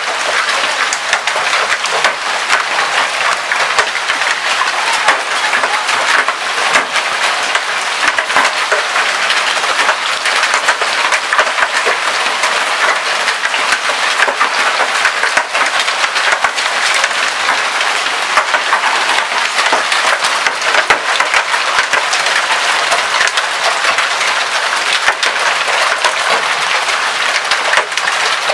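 Hailstorm: hailstones pelting down with rain, a steady dense clatter of countless small impacts over a rain-like hiss.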